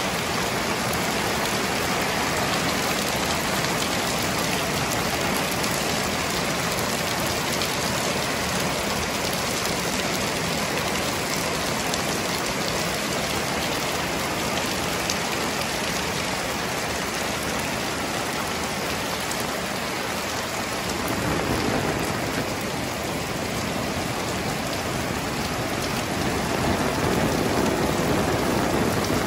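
Heavy rain pouring down steadily, a dense even hiss of drops on wet paving. It swells a little about two-thirds of the way in and again near the end.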